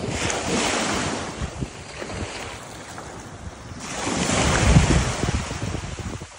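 Small surf waves washing up onto a sandy beach, one surge at the start and a louder one about four seconds in, with wind buffeting the microphone.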